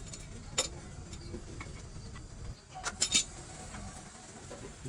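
A few sharp clicks or taps, one about half a second in and three in quick succession around three seconds in, over a low steady rumble.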